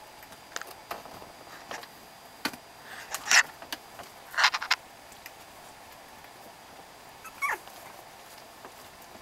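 Young beagle puppies squeaking and yipping in short, sharp bursts while wrestling, the loudest in the first half. Near the end comes one brief cry that falls in pitch.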